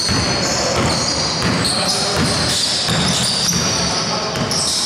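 Basketball being dribbled on a wooden court, a run of bounces mixed with high shoe squeaks from players running.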